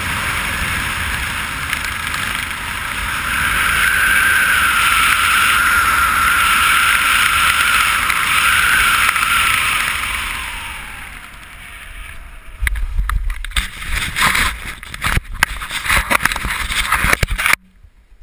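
Wind rushing over a helmet camera's microphone as a skydiver flies the parachute in to land, with a whistling tone and the loudest rush for several seconds, easing off after about ten seconds. Then irregular gusty buffets and low thumps follow touchdown on the grass, cutting off suddenly near the end.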